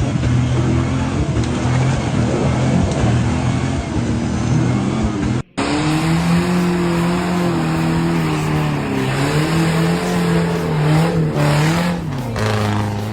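Off-road 4x4 engines running hard and revving, the pitch rising and falling. A brief drop-out about five and a half seconds in, then a second engine's revving note takes over.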